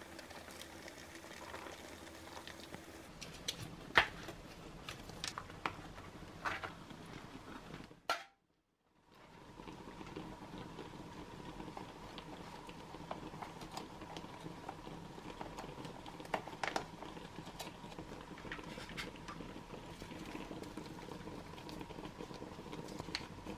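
Faint handling of food packets and utensils on a tabletop: scattered light clicks and taps over a steady low hiss, broken by a sudden second of silence about 8 s in.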